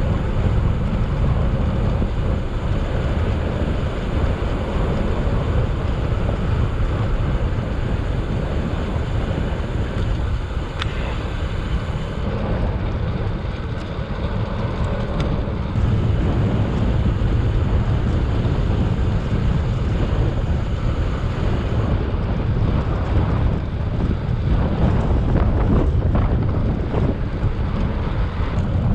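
Wind rushing over the microphone of a moving bicycle, a steady low rumble, with a few light clatters near the end.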